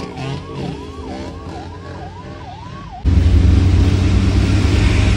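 Ambulance siren sounding a fast up-and-down yelp, about two cycles a second. About three seconds in it cuts off abruptly and gives way to louder road and engine noise of a moving vehicle, with a heavy low rumble and a hiss.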